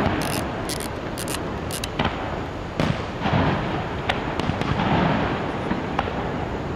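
Fireworks display: aerial shells bursting, with scattered crackling pops and a sharper bang about three seconds in, over a steady background hiss.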